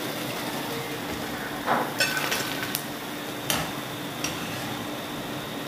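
Hot oil sizzling around frying pakoras, with a handful of light metal taps and clinks, most between about two and four seconds in, as a wire strainer lifts them out and knocks against the pan.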